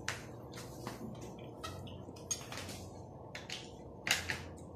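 Eating sounds: chewing and mouth clicks, with a metal spoon clinking and scraping a few times in a glass dessert cup.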